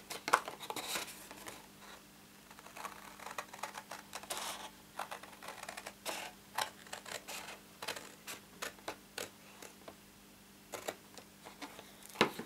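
Scissors snipping through cardstock: a string of short, irregular cuts with a couple of brief pauses.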